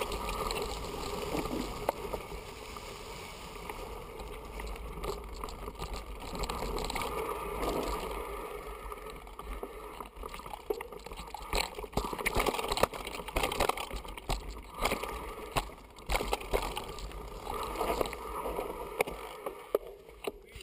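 Mountain bike riding downhill on a rough dirt and stone trail: a steady rush of tyre and wind noise with frequent sharp clicks and knocks as the bike rattles over stones. It cuts off suddenly at the end.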